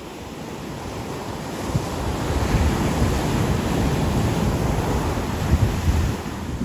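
Ocean surf breaking on a beach: a wave swells and washes in about two seconds in, then eases off near the end. Wind buffets the microphone as a low, uneven rumble.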